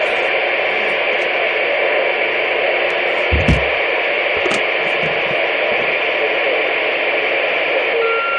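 CB radio receiver hissing with steady static, with a brief low thump about three and a half seconds in.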